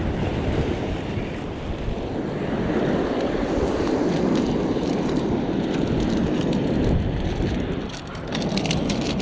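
Wind buffeting the microphone over sea surf washing against a rock ledge. A quick run of sharp clicks starts near the end.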